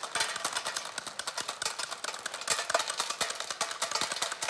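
A metal scraper chopping a bundle of hardened pulled-sugar candy sticks into small sweets against a stone block: a rapid, even run of sharp clicks, several a second, as each piece is cut off.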